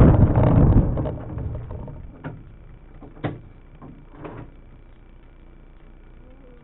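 Two-seat Spitfire's Rolls-Royce Merlin engine running down after shutdown, its noise fading away over about two seconds, followed by three sharp clicks about a second apart over a faint steady hum.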